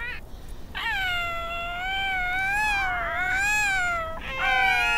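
Cartoon baby seal pups' voices: one long, wavering, high-pitched call starting about a second in, then from about four seconds in two or three voices calling together at different pitches.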